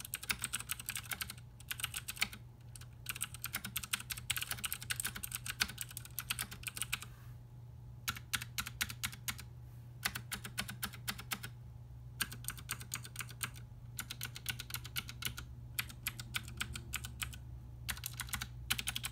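Cherry MX Blue switches on a full-size Ducky One Two Skyline mechanical keyboard clicking under fast two-handed typing. The keystrokes come in quick runs broken by short pauses.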